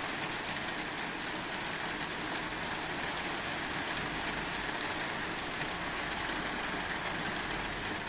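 Rain falling steadily during a thunderstorm, an even hiss of drops with no letup.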